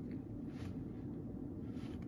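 Cat crunching dry kibble, with two faint crunches, one just over half a second in and one near the end, over a steady low background hum.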